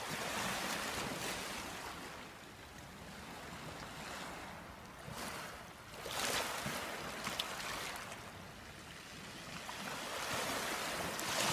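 Small waves of a calm sea lapping onto a pebble beach, washing in and drawing back. The wash swells and fades in slow surges, louder at the start, about halfway through and again near the end.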